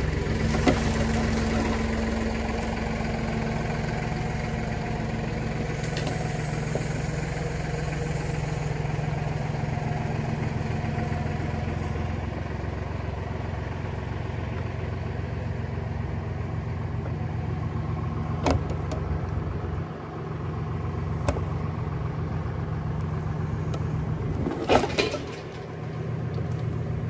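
A vehicle engine running steadily at an even pitch, with a few sharp knocks in the second half.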